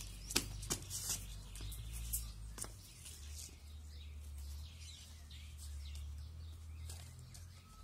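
A few light footsteps on concrete in the first three seconds, with faint bird chirps over a low steady outdoor rumble.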